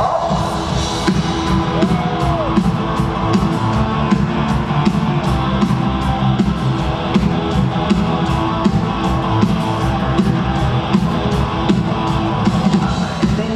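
Live rock band playing through an arena PA, heard from the stands: electric guitars over a steady drumbeat.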